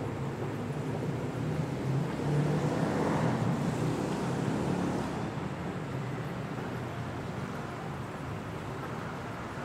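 Steady city road traffic, with one vehicle passing more loudly about two to five seconds in before the noise settles back.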